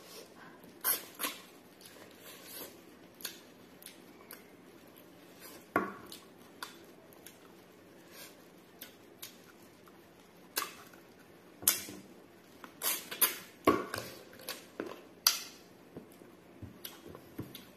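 Close-miked eating sounds of pork eaten by hand: chewing and sharp mouth clicks at irregular intervals, with fingers picking food off a plastic tray, a cluster of louder smacks about two-thirds of the way in.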